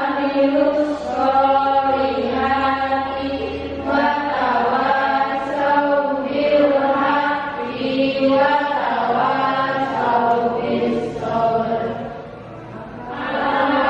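Children's voices chanting a closing prayer together in sing-song unison, on long held syllables that glide slowly between notes. The chant thins briefly near the end.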